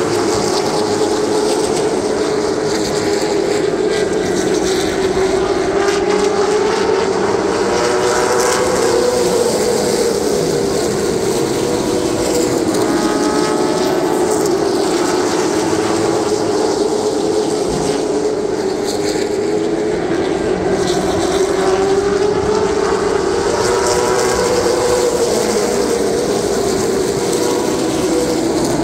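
Late Model stock car V8 engine at racing speed, a steady drone whose pitch climbs on the straightaway and drops back through the turns, about every fourteen to fifteen seconds, twice.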